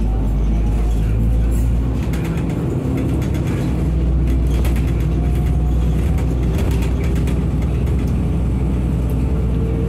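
City transit bus running and pulling through an intersection, heard from inside the passenger cabin: a steady low engine hum with a drivetrain whine that rises in pitch as the bus gathers speed near the end, and scattered rattles from the body.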